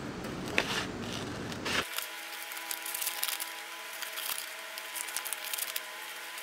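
Scissors cutting through a sheet of paper: a series of short crisp snips with rustling of the paper.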